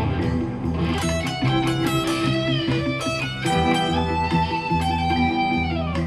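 Guitar-led background music over a steady bass line, with a note sliding down in pitch near the end.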